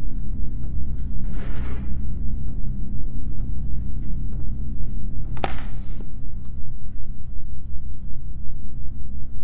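Low, ominous film-score drone of steady deep tones, pulsing quickly. A brief rustling scrape comes about a second and a half in, and a sharp knock a little past five seconds.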